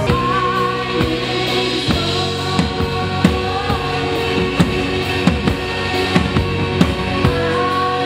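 Worship band music: drums keeping a steady beat under held chords.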